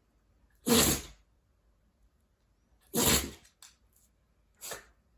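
A pet coughing in a row: two sharp coughs about two seconds apart, then a weaker third near the end.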